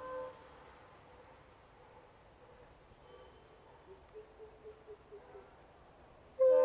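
Quiet trackside ambience with insects ticking steadily and a few short calls from a bird in the middle. A locomotive horn is just ending at the start, and near the end a loud locomotive horn blast starts suddenly.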